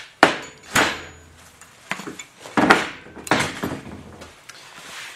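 About five sharp metallic clanks and knocks spread over four seconds, the loudest a quarter second in and near three seconds: metal parts and tools being handled and set down on a workbench.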